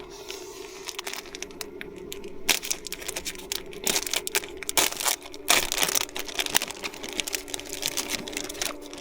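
Crinkling and rustling of something being handled, in irregular bursts of crackles, over a steady low hum.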